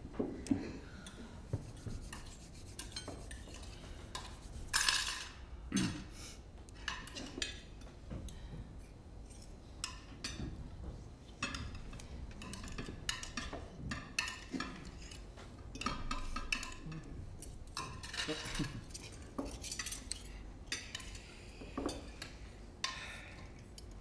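Cutlery clinking and scraping on china plates, with occasional glass clinks, as several people eat at a table: scattered irregular clicks throughout.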